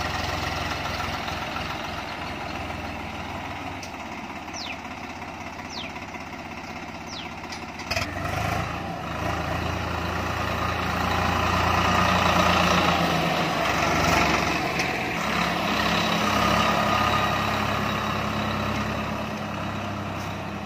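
Swaraj 744 FE tractor's three-cylinder diesel engine running steadily as the tractor drives slowly over the spread crop. The engine gets louder after about eight seconds and is loudest a few seconds later.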